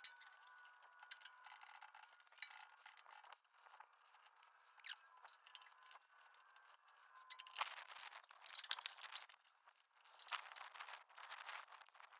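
Faint metallic clicks, clinks and scrapes of hand tools working on excavator hydraulic hose fittings, busiest in the second half.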